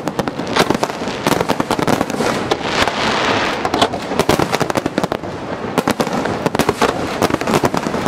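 Aerial fireworks shells bursting, with dense, rapid crackling and popping that thickens into a hissing crackle about three seconds in.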